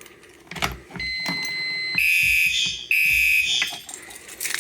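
A fire alarm pull station is pulled with a click, and the alarm system sounds: first a steady high beep for about a second, then two loud, harsh fire alarm horn blasts with a brief break between them before the horn cuts off. Light rattling and clicking follow near the end.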